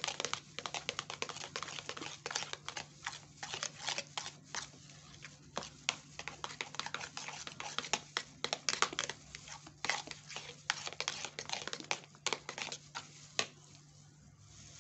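A metal spatula stirring thick lotion in a plastic bowl: dense, irregular scraping clicks, with the crinkle of plastic gloves, thinning out near the end.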